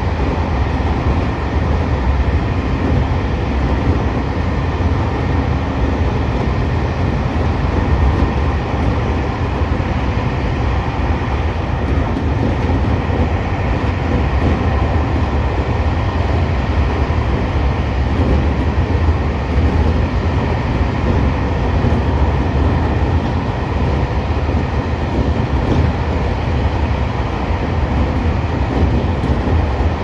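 Seibu 2000 series electric train running steadily along straight track, a continuous low rumble of wheels on rail heard from inside the front cab.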